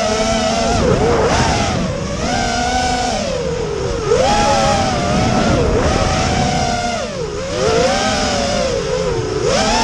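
FPV racing quadcopter's motors and propellers whining, heard from the onboard camera, the pitch rising and falling constantly with the throttle.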